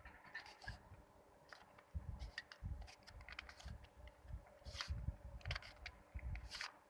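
3x3 Rubik's cube layers being turned by hand: faint, irregular plastic clicks and clacks with soft low knocks from handling the cube.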